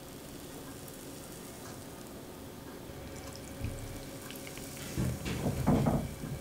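Frothed matcha tea pouring in a thin stream from a glass milk-frother jug into a glass of chocolate milk. It is faint at first, then splashes louder for about a second near the end.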